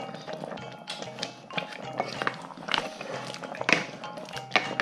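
Background music with steady tones, and a few irregular knocks and scrapes of a wooden spatula against a metal pot as a thick chicken curry is stirred.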